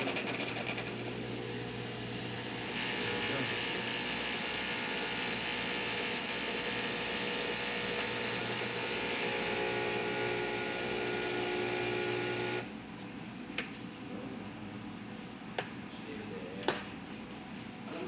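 Breville espresso machine's pump running steadily through a test shot, turning hissier a few seconds in, then cutting off abruptly about two-thirds of the way through. Three sharp clicks follow.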